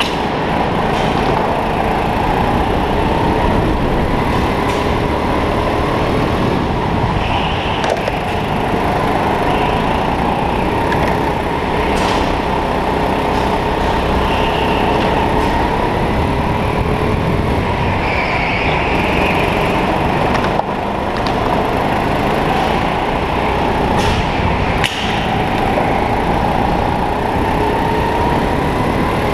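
Racing kart's motor running continuously, heard from on board, its pitch slowly rising and falling as the kart accelerates and brakes through the corners. A few brief knocks cut through.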